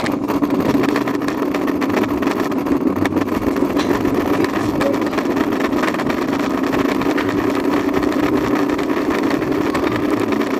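Steady rumbling noise from a handheld camera carried at a run down a hallway, with microphone handling and air noise. It starts abruptly and holds at an even level, with faint footfalls in it.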